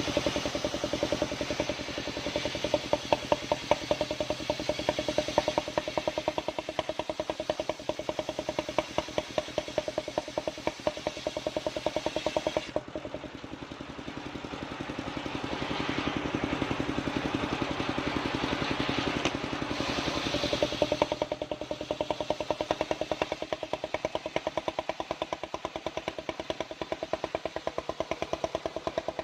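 Engine of a mobile circular sawmill running steadily with rapid, even firing pulses, over a hiss from the saw. The hiss drops away about 13 seconds in and builds again a few seconds later.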